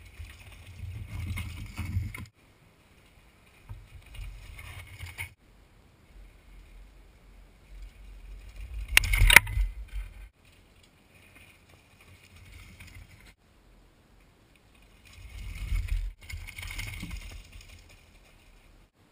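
Mountain bike riding down a rooty dirt trail, heard from a bike-mounted camera: bursts of wind rumble on the microphone with tyre and frame rattle, separated by short quiet gaps. About nine seconds in comes a sharp knock, the loudest sound, as the bike hits a bump.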